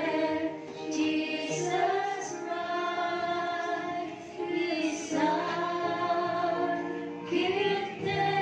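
Worship song sung by a group of mostly female voices together, in long held phrases that break off and start again about every three seconds.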